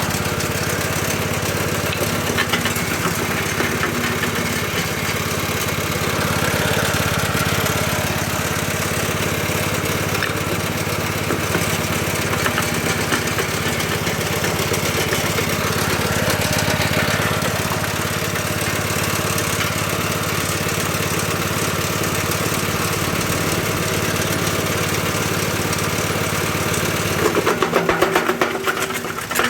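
Homemade stone-crusher machine running steadily, its small engine humming with a clatter of mechanical noise over it. About 27 seconds in the sound grows louder and starts to pulse.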